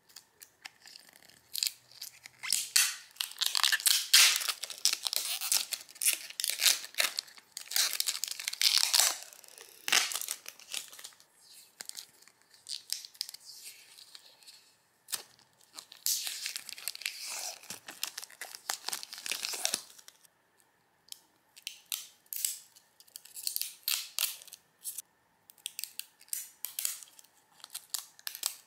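Plastic protective film being peeled and torn off a figure's packaging, crinkling and crackling in irregular bursts, densest over the first two-thirds and sparser near the end.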